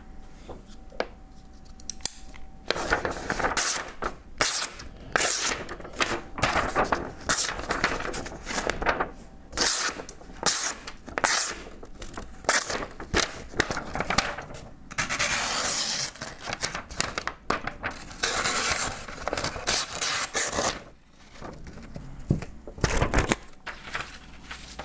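Ganzo 729 folding pocket knife slicing through a sheet of paper: a run of papery cutting strokes starting a few seconds in, some short and some drawn out over a second or two. A couple of light knocks near the end.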